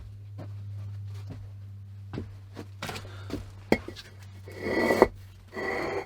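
Scattered sharp knocks and scrapes of hard objects being moved about, with a louder rustling scrape near the end, over a steady low hum.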